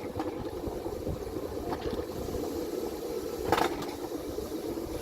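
Coaster cart running down its track: a steady rolling rumble, with a short knock about three and a half seconds in.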